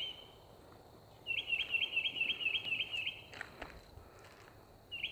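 A bird singing at night: a fast run of about ten identical chirped notes, roughly five a second, then after a pause of nearly two seconds the same run starting again near the end.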